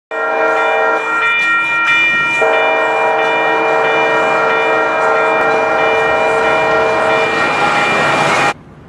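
Diesel freight locomotive's multi-note air horn blowing one long chord, its notes shifting a couple of times, then cutting off suddenly near the end.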